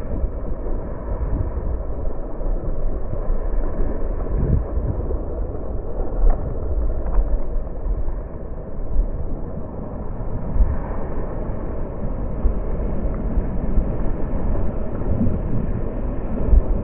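Water rushing and spraying along the rail of a finless cork alaia surfboard riding a wave, mixed with wind buffeting the board-mounted camera's microphone. The sound is dull and steady, with a few short louder surges.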